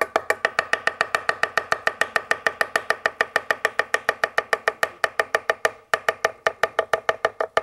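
Chinese cleaver chopping rapidly and evenly on a wooden cutting board, about eight strikes a second, with a short break about six seconds in. The blade is cutting Sichuan preserved vegetable into thin julienne strips.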